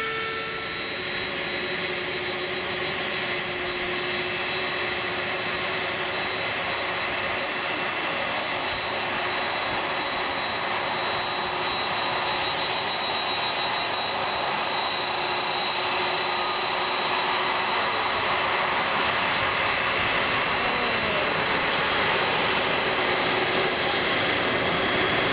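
Jet engines of a Boeing 747-400 freighter running steadily: a continuous rushing noise with a high steady whine on top, growing louder about halfway through.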